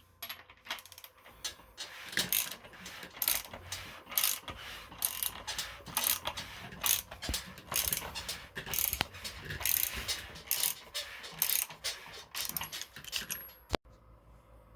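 Rapid, irregular metallic clicking of hand tools at work on an engine, like a ratchet wrench being worked, several clicks a second. It stops with one sharp click near the end.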